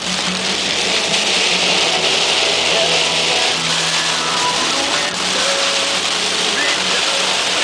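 Heavy rain hitting a car's windshield and wet-road hiss from the tyres at highway speed, heard from inside the car as a loud, steady rush over the low hum of the engine.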